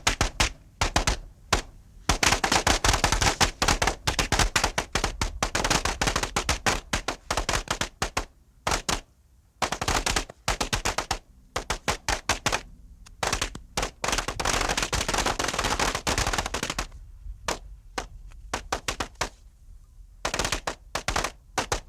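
Fireworks going off in rapid strings of sharp bangs, dense runs of several seconds broken by short pauses, the longest about nine seconds in and another near eighteen seconds.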